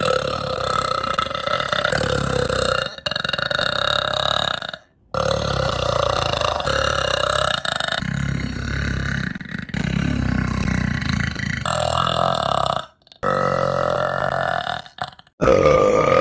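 A series of long, drawn-out burps. Each lasts several seconds, with brief pauses between them.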